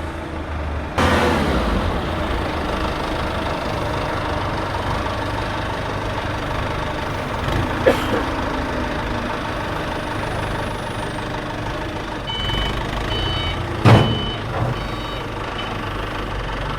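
Diesel generator set engine running with a steady heavy noise that jumps up suddenly about a second in. Two sharp knocks at about 8 and 14 seconds in, and a string of short high electronic beeps near the end.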